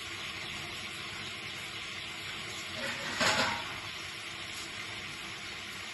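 Steady hiss from a kadhai of water heating on a gas stove to steam the dhokla, with a brief louder rush of noise about three seconds in.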